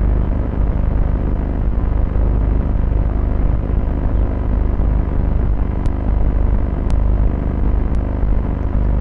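Steady low rumble on the microphone, with three faint sharp clicks about six, seven and eight seconds in.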